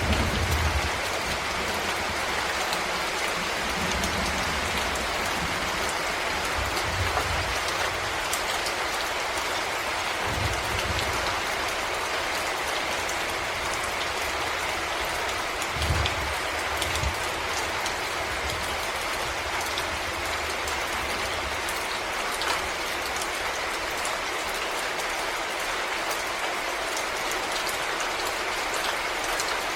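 Steady rain falling in a forest: a dense, even patter of drops. A few brief low thuds come and go, the loudest about sixteen seconds in.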